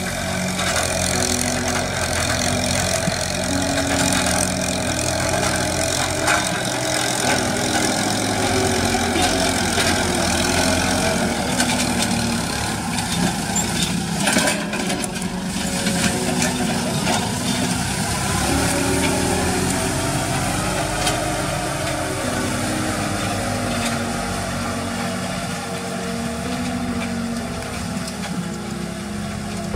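Farm tractor engine running steadily under load while pulling a disc plough through dry field soil.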